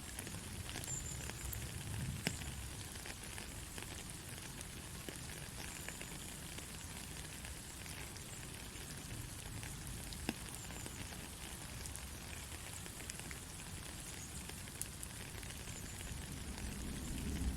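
Soft rain falling: a steady, even hiss with scattered ticks of individual drops.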